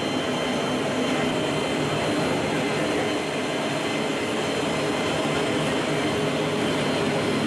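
Steady jet engine and airflow noise inside the cargo hold of a military transport aircraft in flight, a dense, even rush with faint steady whines on top.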